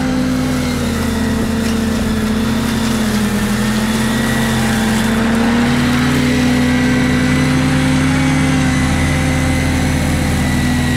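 Walker T25i ride-on mower running steadily under load while it vacuums up leaves, its engine note dipping slightly about a second in and picking back up around halfway, with a steady high whine above it.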